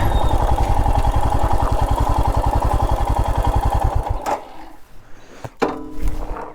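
Royal Enfield Himalayan BS6's 411 cc single-cylinder engine idling with an even thudding beat, then switched off about four seconds in. A click and a few knocks follow.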